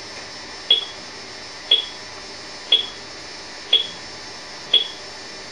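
Cheap Talk 8 communication device beeping: five short, high-pitched beeps, evenly spaced about one second apart.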